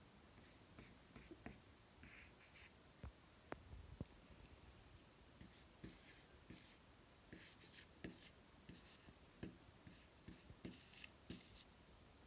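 Red Expo dry-erase marker writing on a whiteboard: faint, short scratchy strokes of the felt tip, one after another, with a few sharp clicks about three to four seconds in.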